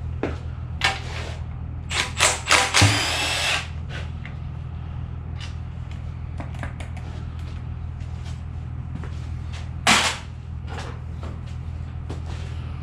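Tool work on engine parts: scattered metal clicks and knocks, a loud noisy stretch lasting about a second around three seconds in, and one sharp loud clank about ten seconds in, over a steady low hum.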